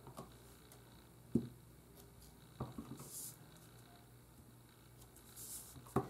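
A clear acrylic stamp block is handled on an ink pad and cardstock, giving a few soft knocks, the loudest about a second and a half in. Light paper rustles come between them.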